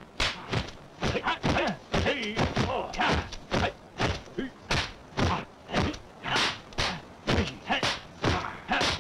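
A rapid run of punch and block sound effects, about two to three sharp smacks a second, from a hand-to-hand kung fu exchange. Short shouts and grunts from the fighters come in between, around two and five seconds in.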